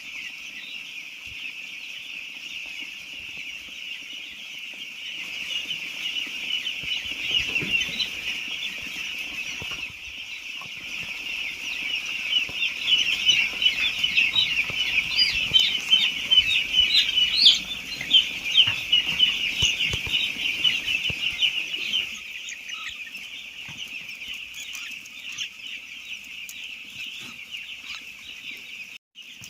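A flock of eight-day-old chicks peeping continuously as a dense chorus of high chirps, growing louder in the middle and easing off again near the end, with some low knocks and rustling under the loudest part.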